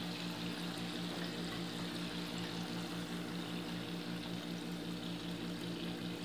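Murukku deep-frying in hot oil: a steady bubbling sizzle, over a steady low hum.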